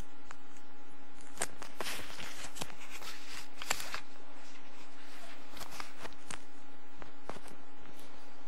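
Handling noise from a microphone being moved about: irregular rustling, knocks and clicks in two busy stretches, over a steady electrical hum.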